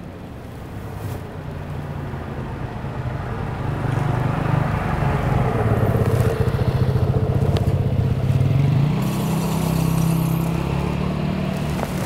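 A vehicle engine running, growing steadily louder over the first half and stepping up in pitch near the end, with two sharp taps midway.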